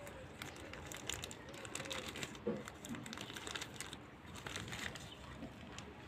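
Clear plastic zip-lock bag crinkling and rustling in irregular small crackles as hands peel it open around the soil-wrapped root ball of an air-layered bougainvillea branch.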